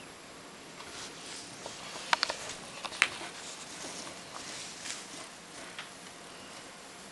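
Hamster scrabbling and digging in bedding shavings: rustling and scratching, with a few sharp clicks, the loudest about two and three seconds in.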